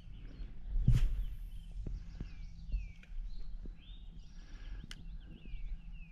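Birds singing: short downward-sliding chirps repeating again and again, with a buzzy trill about four seconds in. A few sharp clicks cut in, the loudest about a second in.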